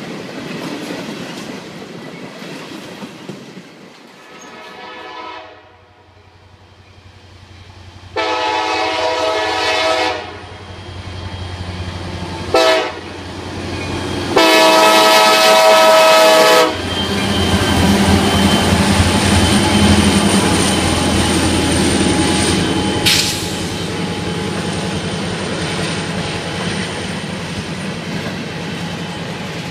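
Freight train rolling past with wheels clicking over rail joints, then a pair of Wheeling & Lake Erie diesel locomotives sounding the horn in a long, long, short, long pattern, the grade-crossing signal, the last blast loudest. The locomotives then pass with a throbbing diesel rumble, followed by tank cars rolling by with steady wheel noise.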